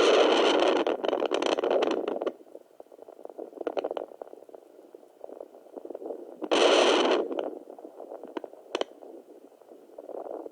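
Home fetal Doppler's speaker giving two loud stretches of scratchy, crackling noise, a long one at the start and a shorter one in the middle, over a muffled low whooshing with scattered crackles.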